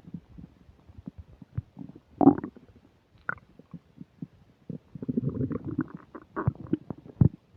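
Human stomach and intestines gurgling and rumbling with an upset digestion after a meal. Irregular small pops and squelches, a loud gurgle about two seconds in, a longer rumble from about five to six seconds, and a sharp pop near the end.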